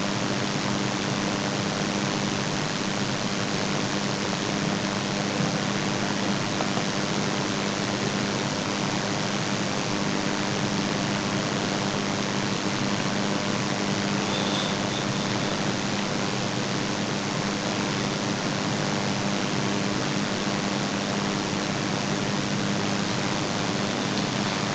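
Steady hiss with a low, even hum underneath, unchanging throughout.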